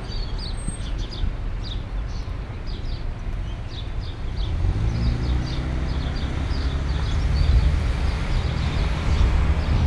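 Street traffic: a motor vehicle on the road draws near from about halfway through, its engine growing louder, over a steady rumble of traffic. Small birds chirp repeatedly throughout.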